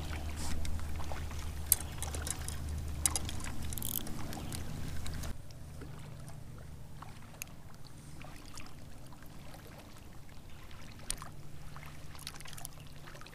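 Lake water lapping against a fishing kayak while a fish is being played, with a few light clicks and knocks of gear on the kayak. A steady low rumble under it cuts off suddenly about five seconds in, leaving quieter water sounds.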